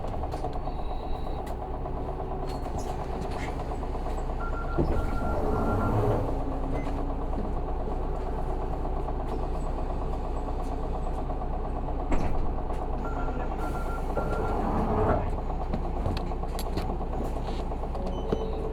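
Isuzu Erga city bus's 6HK1 diesel engine running inside the cabin while the bus stands at a stop and then pulls away. Twice a triple electronic beep sounds, and there is a sharp knock about twelve seconds in.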